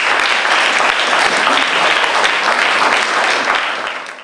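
Audience applauding, many hands clapping steadily, tapering off near the end.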